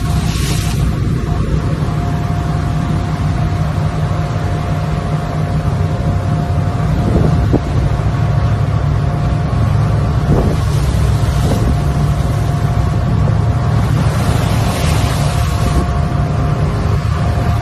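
A small boat's engine running steadily under way, with wind on the microphone and water rushing past the hull. A few louder hisses of spray come through, the strongest about 15 seconds in.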